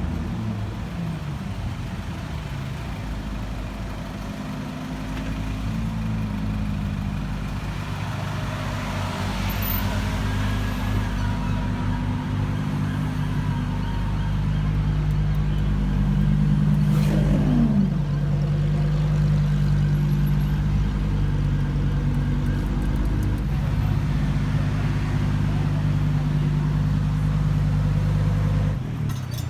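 Car engine running steadily at low revs. About seventeen seconds in, a falling whine sweeps down in pitch.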